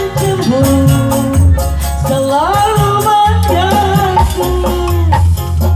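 Live band music: a drum kit with cymbals keeping a steady beat over a heavy bass line, with a lead melody that slides between held notes.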